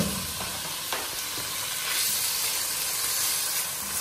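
Freshly added chicken strips sizzling as they fry in hot oil with onion and garlic-ginger paste: a steady high hiss, with a couple of faint clicks about one and two seconds in.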